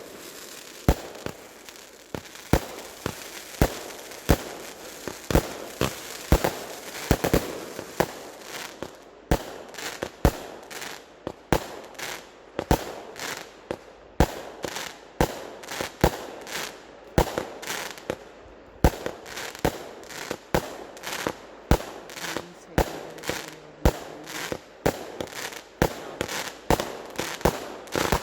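Consumer fireworks going off in a rapid, uneven string of sharp bangs, roughly two a second, with crackling between them.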